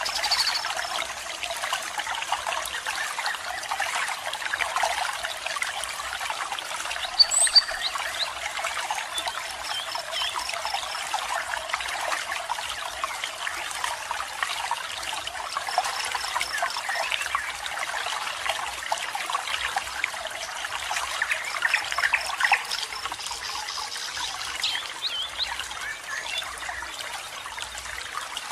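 Small waterfall trickling and splashing steadily. A few brief high bird chirps sound over it, a sharp pair about seven seconds in.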